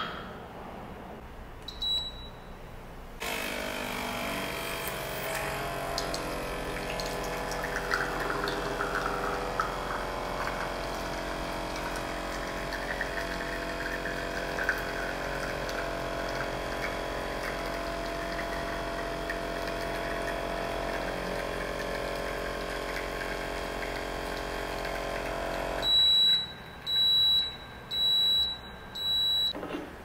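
IMONS Mini capsule espresso maker brewing a shot: two short beeps as it is started, then about three seconds in its pump starts running with a steady hum while the espresso flows, stopping after about 23 seconds. The machine then beeps four times, signalling the end of extraction.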